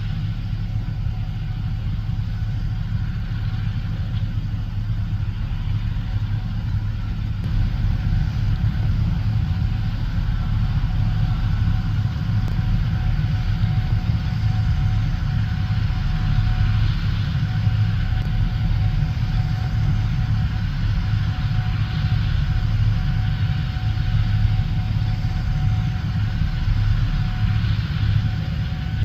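Diesel harvest machinery running steadily in the field: a low engine drone with a faint steady whine above it.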